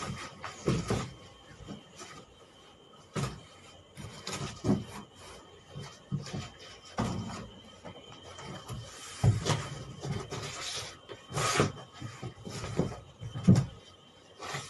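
A large cardboard shipping box being lifted, turned and shifted by hand: irregular bumps, knocks and scrapes of cardboard against the floor and walls, with a sharp knock near the end the loudest.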